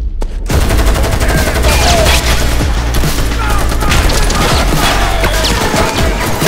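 Rapid, overlapping gunfire: a dense, continuous barrage of shots that starts suddenly and does not let up.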